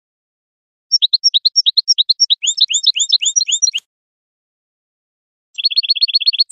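European goldfinch singing: a rapid twittering run of varied chirped notes for about three seconds that breaks off abruptly. After a pause comes a quick, even trill of about nine identical notes, ending in a falling slurred note.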